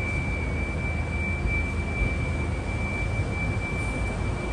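A single steady high-pitched tone holds at one pitch over a low, even background rumble.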